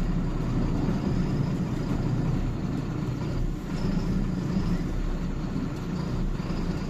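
Motor vehicle driving along a dirt road, heard from inside the cab: a steady engine hum mixed with road and tyre rumble.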